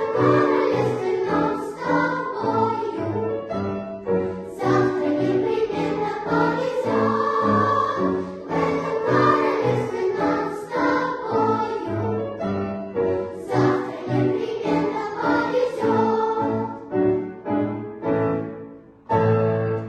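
Junior children's choir singing with instrumental accompaniment, closing on a last loud chord near the end.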